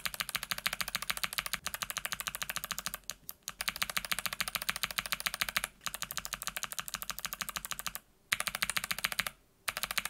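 Mechanical keyboard switches pressed rapidly and repeatedly in short runs with brief pauses between: a clicky Kailh BOX Jade and a muted BOX Jade hybrid (a Mute Jade top housing with its silicone dampener on a Midnight Jade), tried in turn in the same key spot to compare their clicks.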